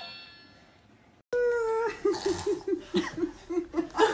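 Music fading away, then after a brief gap a held high 'aah' followed by high-pitched laughter in quick pulses, about four a second.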